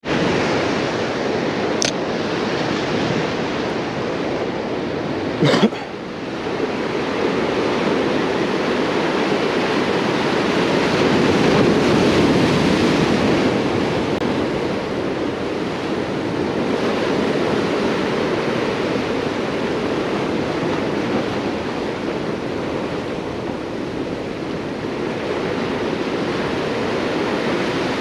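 Ocean surf washing and breaking over jetty boulders, a steady rush that swells and eases. Two brief clicks cut through it, a faint one about two seconds in and a louder one about five and a half seconds in.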